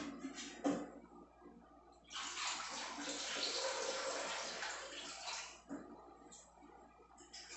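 Kitchen tap running into a stainless steel sink, starting about two seconds in and stopping about three and a half seconds later. A couple of short knocks come in the first second.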